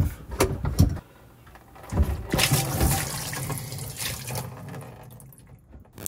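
A few clicks and handling noises as the dishwasher drain hose is worked off the garbage disposal inlet, then, about two seconds in, water pouring out of the hose into a plastic tray and gradually tapering off. The water had backed up in the hose because the new disposal's knockout plug was never removed.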